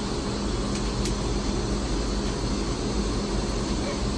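Steady low hum and rumble inside a railway passenger coach, with two faint clicks about a second in.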